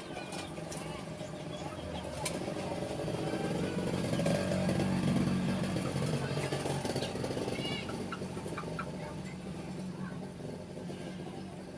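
Short canary chirps over a low motor hum that swells from about four seconds in and then fades away.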